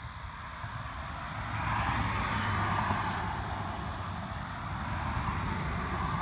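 A passing engine, a broad rushing drone with a low rumble beneath, swells to its loudest two to three seconds in and then slowly eases off.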